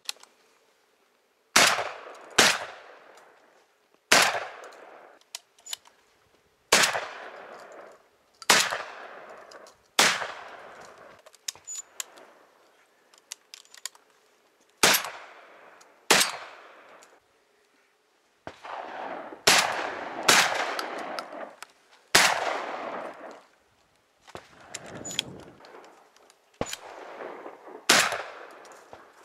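Shotgun fired over and over in fast, uneven succession, about fourteen shots, each trailing off in an echo. Lighter clicks and clacks fall between some of the shots.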